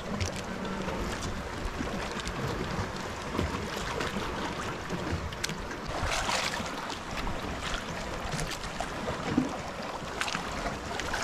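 Wind buffeting the microphone and waves lapping against the hull of a small outrigger boat on choppy sea, with scattered light knocks and a brief louder rush of wind or water about six seconds in.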